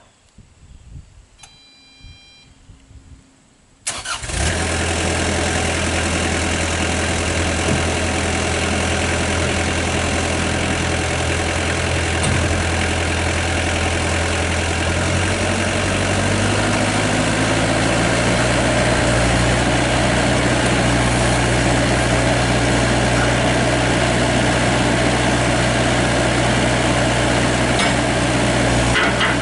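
Kubota V1505 four-cylinder diesel of a GroundHog BH30D mini excavator starting up about four seconds in, after a short beep, and settling into a steady idle. Then, around halfway, it is throttled up and held at higher revs.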